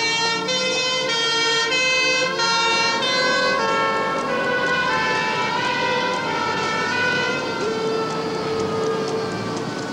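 Ambulance siren: a two-tone hi-lo alternation, switching about every half second for the first three seconds, then a long slow falling wail.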